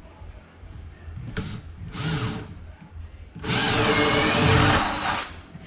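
Power drill boring a hole through an MDF panel: two short bursts, then a steady, louder run of nearly two seconds.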